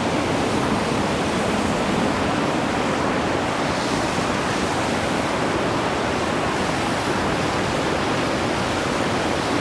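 Rushing white water of a creek in high flood: rapids and falls making a loud, steady roar with no let-up.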